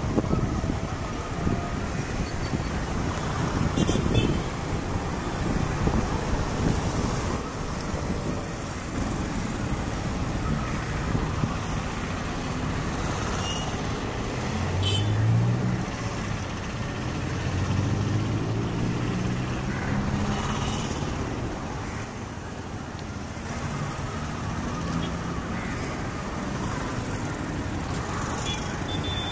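Airbus A320neo's twin jet engines at takeoff thrust during the takeoff roll, a steady loud rush of noise with a low hum that rises in pitch through the middle.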